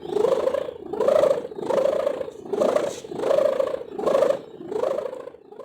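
Sendaren kite hummer several metres long droning in the wind on a flying kite, its hum swelling and fading in a regular pulse about one and a half times a second.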